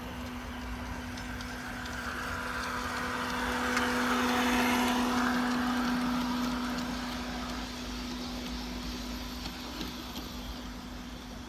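Piko G-scale model diesel locomotive passing with its sound module playing a steady diesel engine hum, along with the rolling noise of the loco and coach wheels on the rails. The sound swells to its loudest about four to five seconds in as the train goes by, then fades.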